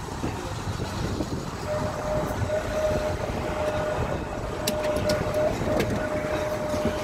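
Blackpool Boat Tram 600 running on its rails, heard from aboard: a steady rumble of wheels on track, with a steady whine setting in about two seconds in and a few light clicks around the middle.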